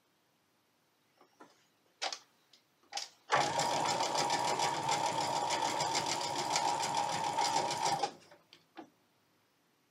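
Electric domestic sewing machine stitching a seam across two small quilting squares, running steadily with a fast, even needle rhythm for about five seconds and stopping abruptly about eight seconds in. A couple of sharp clicks come just before it starts.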